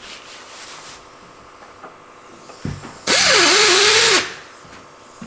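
Air drill spinning a rubber decal eraser wheel against the truck's painted side panel to strip off a decal, run in one burst of about a second about three seconds in: a loud hiss with a whine that dips and wavers.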